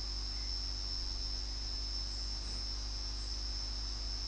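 Steady high-pitched insect trill, like crickets, over a low electrical mains hum. It is background sound in a pause of a recorded talk.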